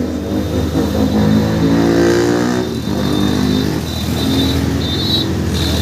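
A motor vehicle engine running close by and revving, its pitch rising and falling, over a steady low hum of street traffic.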